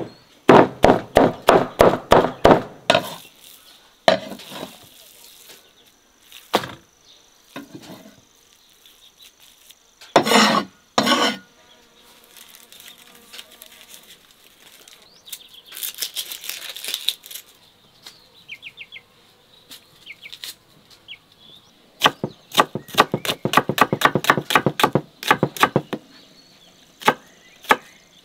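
A large kitchen knife chopping peeled onions on a wooden board, in quick runs of about five strokes a second at the start and again toward the end, with scattered single knocks between. A faint insect buzz and short chirps fill the gaps.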